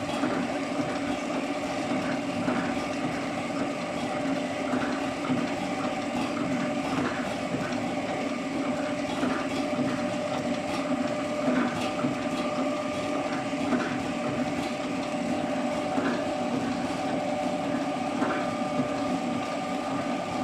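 Horizontal flow-pack packaging machine for playdough running: a steady mechanical hum with light clicks about twice a second.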